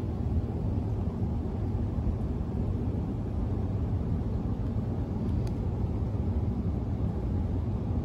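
Steady, low outdoor background noise, mostly deep in the bass, with no distinct events.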